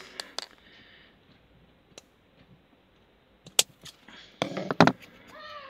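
Scattered sharp clicks and taps from hands working lace trim onto a craft piece. The loudest is a single crisp click about three and a half seconds in, followed by a short cluster of knocks and handling noise.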